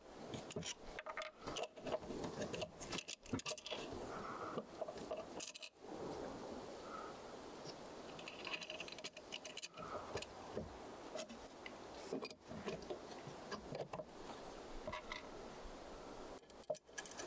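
Small steel parts of a mortise lock clinking, tapping and scraping as they are handled and fitted together on a wooden table: many light, irregular metallic clicks.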